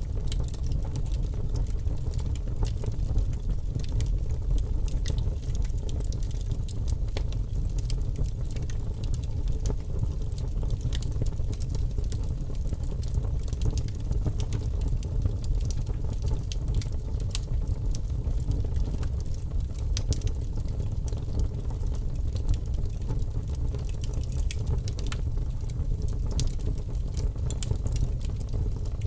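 Large wood fire burning: a steady low rumble of flames with frequent sharp crackles and pops of the burning wood.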